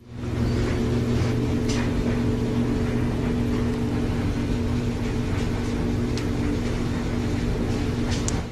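Steady machine hum with a low drone and a few faint clicks over it, starting and stopping abruptly.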